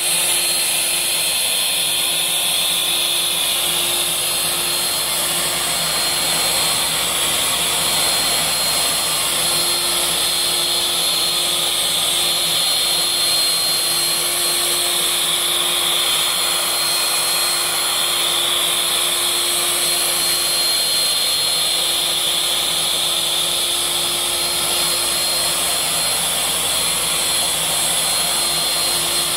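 CNC router spindle cutting a multi-bead moulding profile along a wooden board, with dust extraction drawing chips off through the brush dust shoe. Steady machining noise with a constant high whine.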